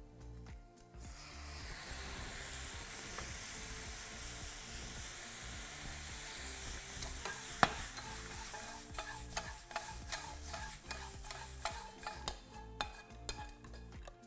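Tempeh slices frying in a hot pan: a loud sizzling hiss sets in about a second in as the liquid seasoning mix hits the hot oil and throws up steam. In the second half, many sharp clicks and knocks of a spatula against the pan as the slices are turned and scraped out.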